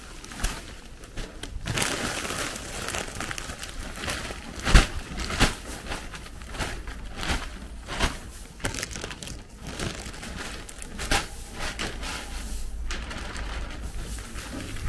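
Dried horse feed and its bag being handled: continuous crinkling and rustling with scattered sharp knocks, the loudest a little under five seconds in.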